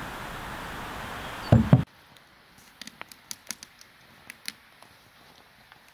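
Steady background hiss, then a dull knock about a second and a half in as a black steel saj stand is set down on a cloth-covered table. After that, faint scattered clicks and taps.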